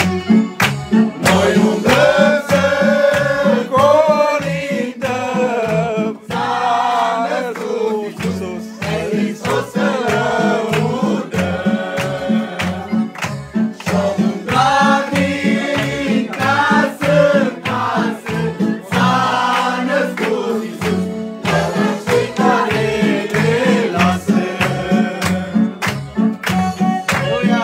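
A group of mixed voices singing a Romanian Christmas carol (colindă) together over instrumental accompaniment with a steady low beat, with hand clapping.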